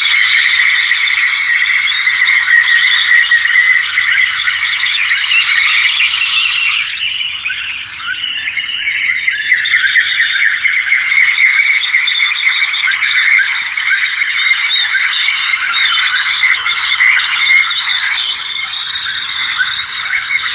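A dense chorus of many small birds chattering and chirping at once, dipping briefly about seven seconds in before picking up again.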